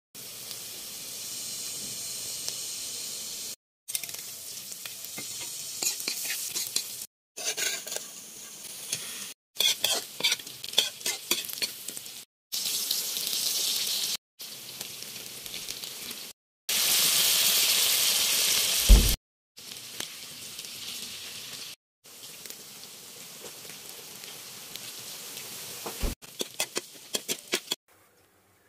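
Pork sisig frying and sizzling in a pan while it is stirred, a utensil clicking against the pan now and then. The sizzling is loudest for about two seconds past the middle, ending in a dull knock. It comes in several short stretches broken by abrupt cuts to silence.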